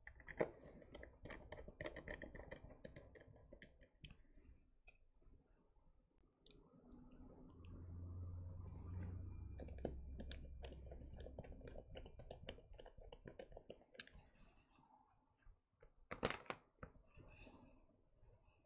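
Faint handling sounds of a Nintendo Switch's metal heat-shield plate being fitted and pressed down onto the console: scattered light clicks, taps and scrapes of metal and plastic. A low rumble runs through the middle as a hand presses on the plate, and a sharp cluster of clicks comes near the end.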